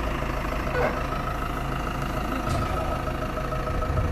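Heavy vehicle engine idling with a steady low rumble; a faint steady whine joins it about a second in.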